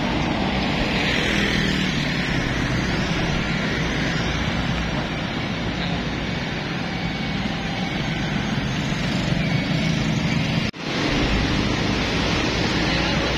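Steady road noise of passing traffic, with wind rumbling on the microphone. The sound cuts out for a split second about eleven seconds in.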